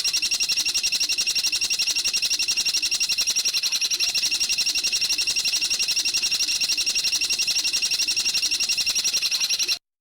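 A bird's rapid, even trill of high notes, about nine a second, held without a break and cutting off suddenly near the end.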